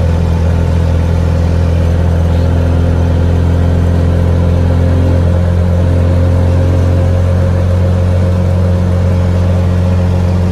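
Motor tricycle's engine running steadily while driving on the road, a loud, even low drone with no change in pace.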